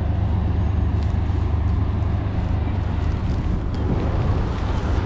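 Wind buffeting the microphone as a steady low rumble, with faint rustles and steps through dry grass.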